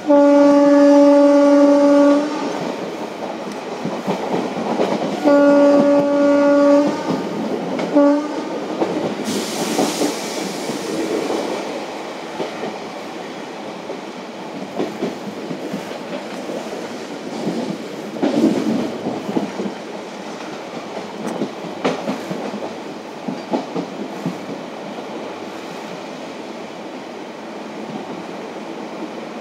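WAP4 electric locomotive horn sounding a long blast, a second shorter blast a few seconds later and a brief toot. The passenger coaches then run on with steady rumble and clickety-clack over the rail joints, with a brief hiss about ten seconds in.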